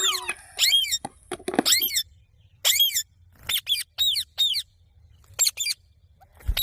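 A parrot giving a run of about ten short, shrill screeching calls, often in quick pairs, each call dipping in pitch. A short knock sounds near the end.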